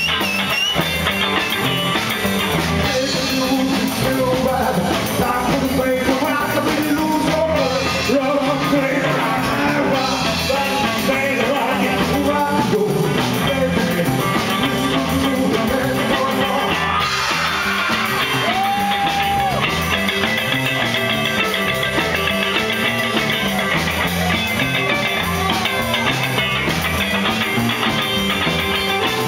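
Rockabilly band playing live: two electric guitars over a drum kit, with a male lead vocal sung into the microphone.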